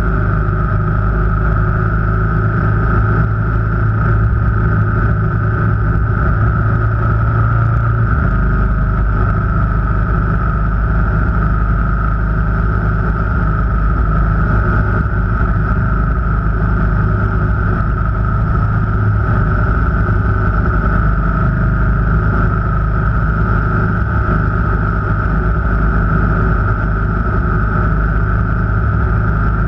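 Car engine and road noise while driving, steady throughout, with the engine note changing about eight seconds in.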